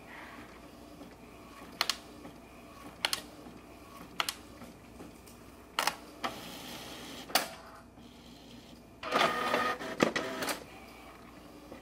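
Canon inkjet printer printing a sheet of stickers: six sharp mechanical clicks at intervals of a second or so, then a whirring motor run of about a second and a half near the end.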